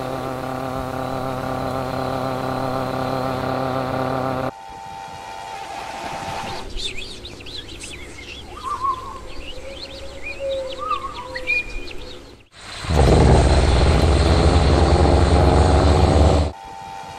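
A collage of city sound recordings cut one after another. First comes a steady mechanical hum with many even tones. Then birds chirp over quiet background noise for several seconds, and finally a loud low engine rumble runs for about four seconds and cuts off abruptly.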